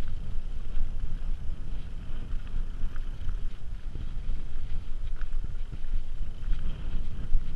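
Mountain bike rolling over a dry dirt singletrack: a steady low rumble of wind buffeting the camera microphone and tyres on the trail, with a few faint clicks and rattles from the bike.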